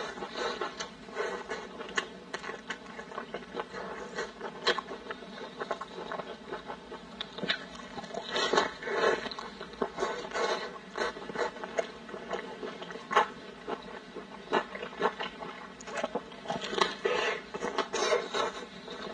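Crisp lettuce leaves crinkling and crackling as they are folded around meat by gloved hands, mixed with close-miked chewing. It is an irregular patter of small crackles with a few louder bursts.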